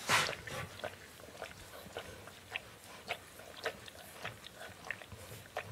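Newborn Bernese mountain dog puppies nursing: a steady run of short smacking and grunting sounds, about two a second, with a louder rustle right at the start.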